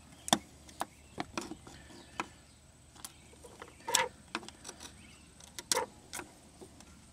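Irregular small metal-on-plastic clicks and taps of a flathead screwdriver working at the plastic retaining clip of a transmission cooler line fitting on the radiator. Three sharper clicks stand out: near the start, about four seconds in and just before six seconds.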